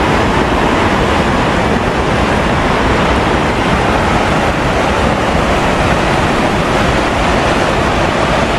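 Steady rushing of river water pouring over a weir, a loud even noise with no distinct events.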